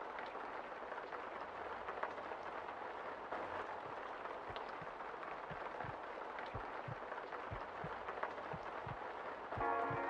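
A steady background hiss; about six and a half seconds in, a muffled low thumping beat starts, about three thumps a second. Near the end, electronic dance music with a melody comes in over it and grows louder.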